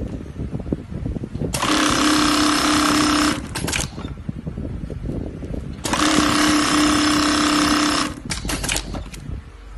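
Golden Choice GC-6003-UT-D string lasting sewing machine running at speed in two bursts of about two seconds each, a steady high mechanical buzz, with short clicks just after each run.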